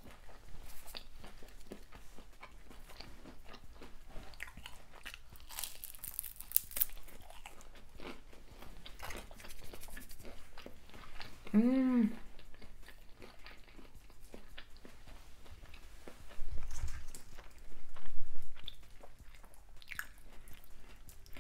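A person crunching and chewing air-fried, hot Cheeto-crusted shrimp in irregular bites, with a short hummed "mm" about halfway through.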